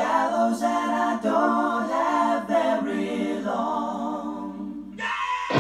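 Unaccompanied group of voices singing in slow close harmony, a low note held beneath moving upper parts. The voices thin out near the end, just before fuller music comes in.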